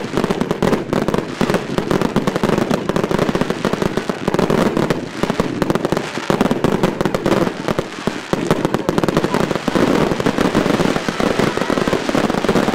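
Fireworks display finale: a dense, unbroken barrage of rapid bangs and crackling from many fireworks firing at once.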